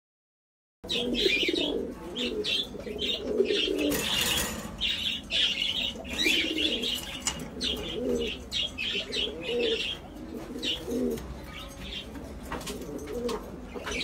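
Pigeons cooing over and over, with small cage birds chirping rapidly on top; the sound cuts in suddenly about a second in.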